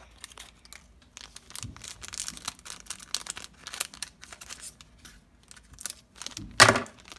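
Scissors snipping a thin plastic packet open, with the packet crinkling as it is handled. Scattered small clicks and rustles run throughout, and a louder rustle comes near the end.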